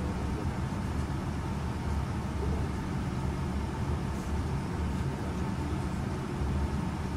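Steady low rumble of airflow and engines inside a Boeing 777 flight deck on final approach, with the landing gear down.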